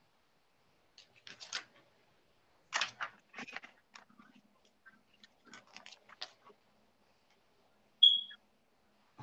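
Soft, scattered rustling and clicking noises picked up over an open video-call microphone, then a single brief, sharp high-pitched squeak or beep about eight seconds in, the loudest sound.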